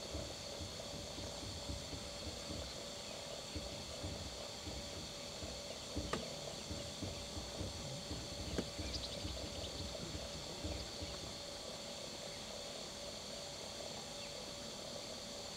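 Steady outdoor background noise with a low, uneven rumble and a faint constant high drone, broken by two brief clicks, one about six seconds in and another about two and a half seconds later.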